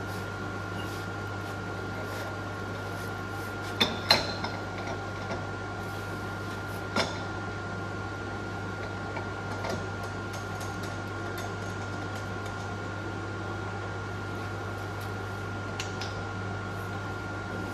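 Steady machine hum with a constant high whine, broken by a few sharp metal clinks as tooling is handled at a milling machine: a quick cluster about four seconds in, the loudest, and a single clink about seven seconds in.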